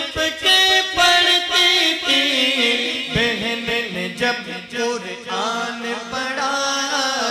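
Male voices singing an Urdu naat, a devotional chant, into microphones with no instruments, in long held notes that slide and bend in pitch.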